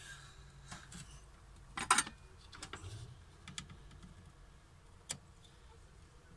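Light clicks and taps from handling an electrolytic capacitor against a circuit board, with one sharper click about two seconds in and a few fainter ticks after.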